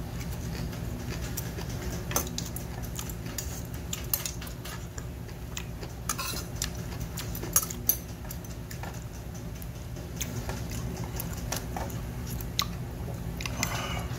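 Metal spoon and chopsticks clinking and scraping in a stainless steel bowl of bibimbap as the rice is mixed and scooped: scattered sharp clicks at irregular intervals, over a steady low hum.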